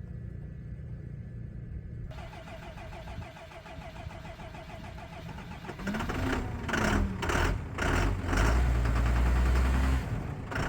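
Old Ford tractor's diesel engine, which has no glow plugs, given a shot of ether against the below-freezing cold, cranking with a few loud strokes about six seconds in, then catching and running loud and steady before settling back near the end.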